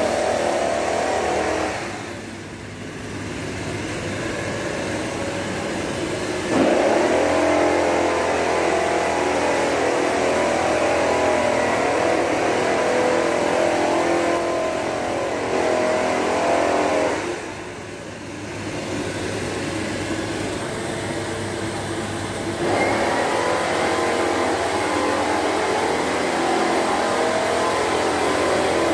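Loud, steady mechanical whir and hum of running machinery. It drops away briefly twice and steps up abruptly at other moments.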